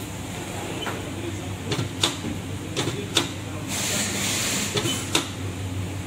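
Sharp clicks and knocks of hand work on a wheel at a wheel balancer, coming in three pairs, with a short hiss about four seconds in and a steady low machine hum underneath.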